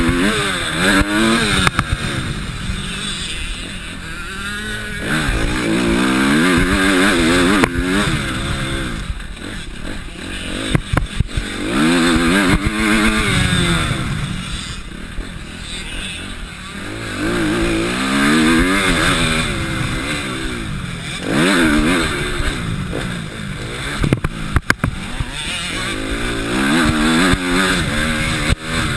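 Motocross dirt bike engine heard from the onboard camera, revving up and dropping again and again as the rider accelerates and shifts through the laps, under a rush of wind. A few short knocks and clatters come from the bike over the rough track.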